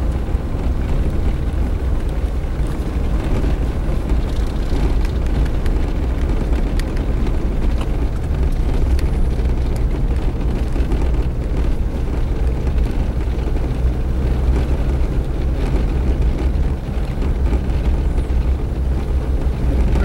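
Suzuki Jimny being driven on a dirt road, heard from inside the cabin: a steady low rumble of engine and tyres on the unpaved surface.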